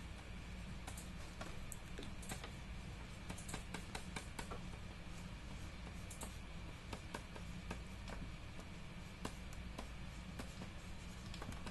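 Stylus tapping and stroking on a graphics tablet during digital drawing: irregular light clicks, several a second at times, over a steady low hum.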